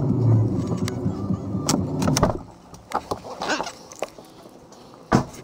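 Ford Mustang GT's 5.0 Coyote V8 idling, then shut off a little over two seconds in. A few light clicks follow, and near the end a car door shuts with a loud thump.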